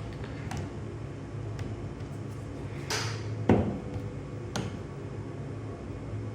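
A few short knocks and clatters of hard objects being handled and set down, three of them sharp, over a steady low hum.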